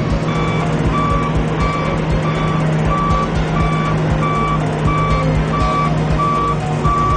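Reversing alarm on an Albach Diamant 2000 self-propelled wood chipper beeping steadily, about three beeps every two seconds, over the steady drone of the machine's engine.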